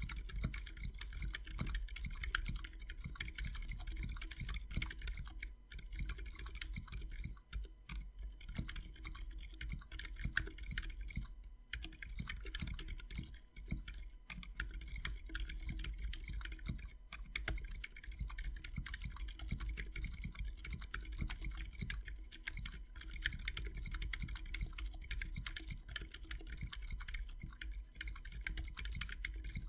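Steady typing on a 60% mechanical keyboard with a carbon-fiber skeleton case, PBT doubleshot keycaps, and lubed, filmed linear switches: a fast run of key clicks with a few short pauses.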